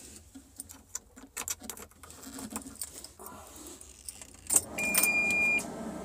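Keys jangling and clicking as the ignition key goes into the switch. Then the Kubota KX61-3 mini excavator's diesel engine starts at once, with a warning buzzer giving one steady beep of under a second, and settles into an even idle. The machine starts at a touch.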